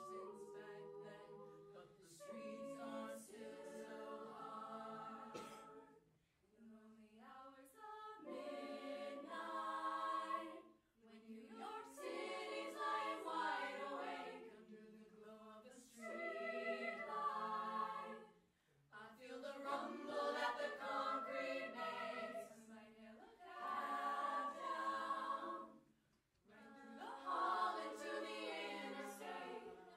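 Women's a cappella group singing an arrangement in several-part harmony, without instruments, in phrases of a few seconds separated by brief breaths.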